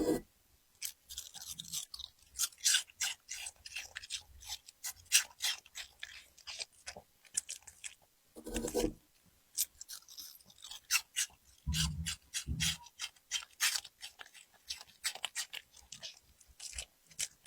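Puppy chewing and crunching food close to the microphone: a run of quick, crisp crunches, broken a few times by heavier, deeper bites.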